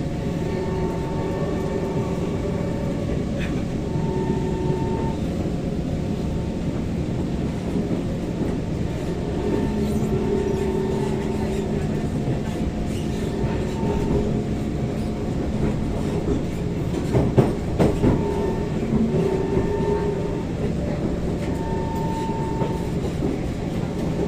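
SMRT C151 metro train running, heard from inside a car: a steady rumble of wheels on track with whining tones that come and go, and a short run of clacks about two thirds of the way through.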